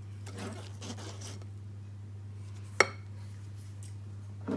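Kitchen utensils and dishes handled: one sharp clink nearly three seconds in and a duller knock near the end, with soft rustling early on, over a steady low hum.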